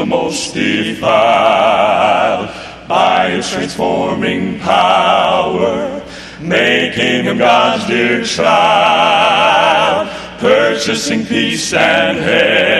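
Southern gospel male vocal trio singing in close harmony, holding long notes with vibrato in phrases of a second or two.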